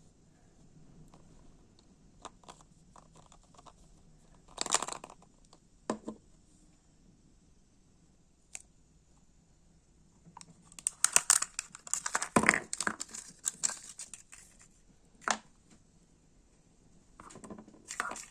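Packaging being opened by hand: separate rustles and tears, then a long stretch of crinkling and tearing from about eleven to fourteen seconds in.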